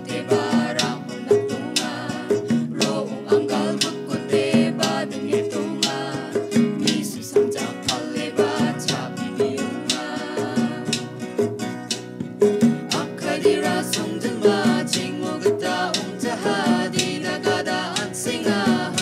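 Traditional Meghalayan folk song: male and female voices singing together over a strummed acoustic guitar, with regular strikes from a hand-held gong and a long drum.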